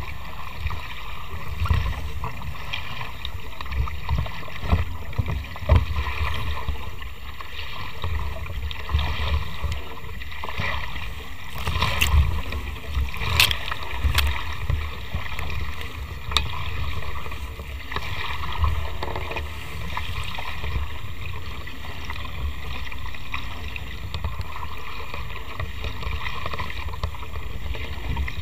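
Nacra 500 catamaran under sail: water rushing past the hulls with wind buffeting the microphone, steady throughout, with a few sharp taps about halfway through.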